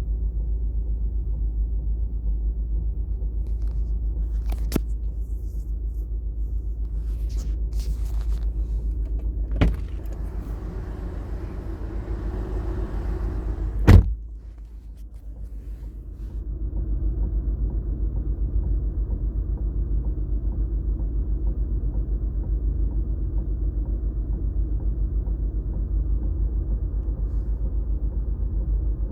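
Ford Mondeo TDCi diesel engine running with a steady, rapidly pulsing low pounding, a noise the owner hears in the early part of a drive that then goes away by itself, cause unknown. Three sharp knocks cut in, the loudest about halfway, after which the running sound dips for a couple of seconds and comes back.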